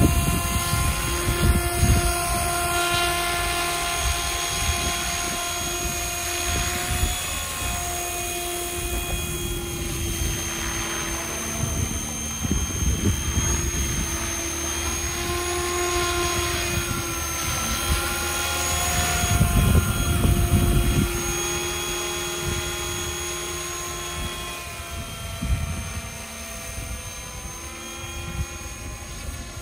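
Radio-controlled model helicopter in an Écureuil scale body flying: a steady whine from its rotors and drive whose pitch shifts slightly up and down as it manoeuvres. It grows fainter near the end as it flies away.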